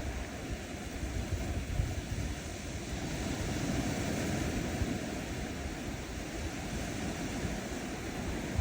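Small ocean waves washing onto a sandy shore, a steady wash of surf that swells a little in the middle, with wind rumbling on the microphone.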